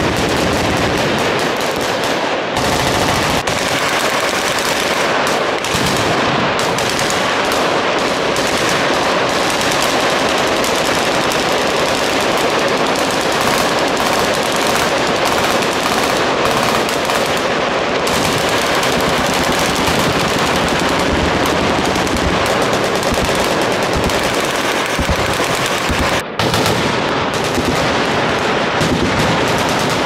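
Several machine guns firing full-auto at once, their long overlapping bursts merging into an unbroken rattle of rapid shots. The firing stops for a moment about 26 seconds in, then resumes.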